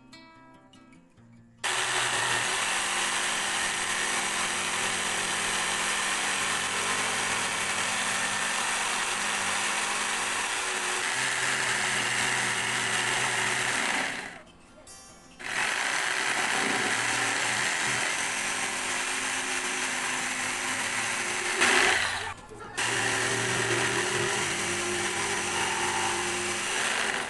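Corded jigsaw running and cutting through a clamped wooden board, a steady loud buzz of motor and blade. The cut stops for about a second near the middle and dips again briefly later, just after a sharp louder moment.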